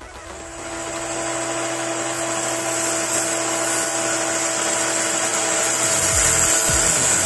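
A small electric motor-driven tool whirring steadily, fading in over the first second and holding a constant pitch. Electronic music with a thumping bass beat comes in near the end.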